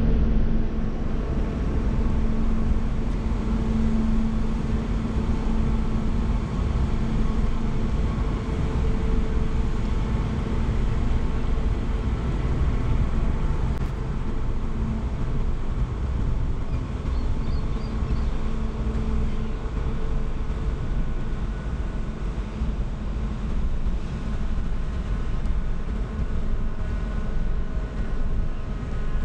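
The Great Lakes freighter Paul R. Tregurtha passing close alongside: a steady low rumble from the ship's engines and moving water, with a faint hum that comes and goes.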